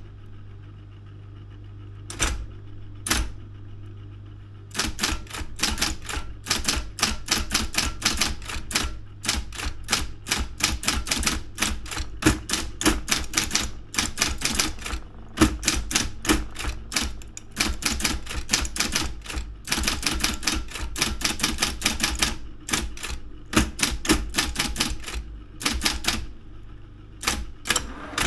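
Daro 202 electric typewriter being typed on over the steady hum of its motor: two lone key strikes in the first few seconds, then fast runs of keystrokes, about four or five a second, with brief pauses between bursts.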